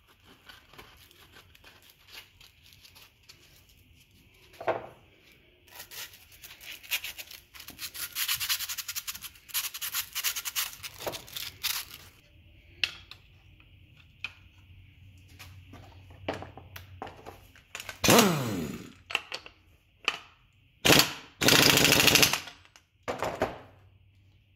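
Hand tools and small metal parts being handled and scraped on a plastic truck-bed liner, with scattered clicks and a long stretch of scrubbing or scraping about six seconds in. Near the end comes a short sound that falls in pitch, then two loud noisy bursts, the loudest things heard.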